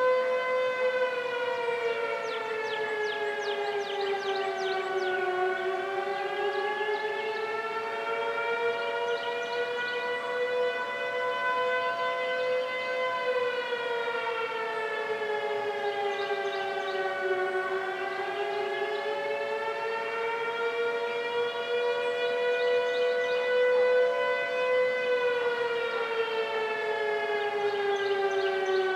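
Outdoor storm warning siren on a wail, its pitch sliding slowly down and back up about every twelve seconds.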